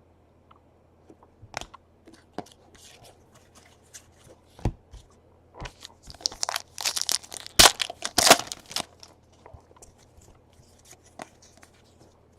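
Trading-card pack wrappers being torn open and crinkled: scattered light rustles and clicks at first, then a loud stretch of tearing lasting about three seconds in the middle, then quiet handling again.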